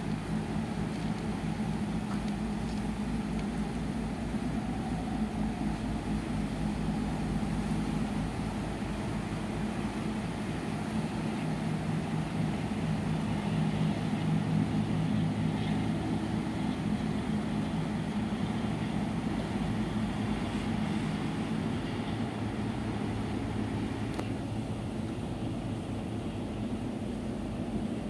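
A ship's engine running steadily: a low drone with a few held tones, over a constant rush of noise.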